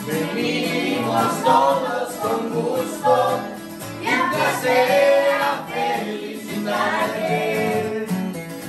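Acoustic guitars played with singing voices, a song performed live in the room.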